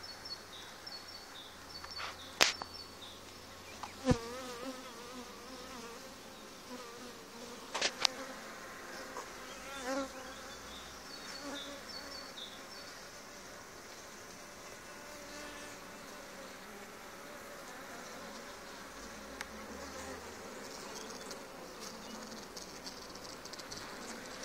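Honeybees buzzing steadily over an open hive's frame tops, a wavering hum. A few sharp knocks come about 2, 4 and 8 seconds in.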